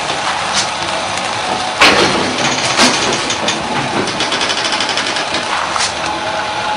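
Straw mattress braiding machine running: a loud, steady mechanical clatter with a few sharper knocks, the strongest about two seconds in.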